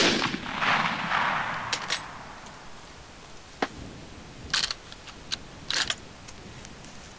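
A single shot from a 1918 Gewehr 98 Mauser bolt-action rifle in 8x57mm, the report echoing away over about two seconds. Then come sharp metallic clicks and clacks of the bolt being worked, mostly in two quick clusters about four and a half and six seconds in.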